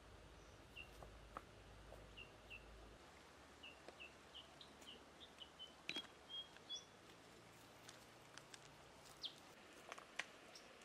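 Faint forest ambience with a small bird repeating short chirps, about one or two a second, coming faster in the middle. A few faint clicks sound, two of them near the end.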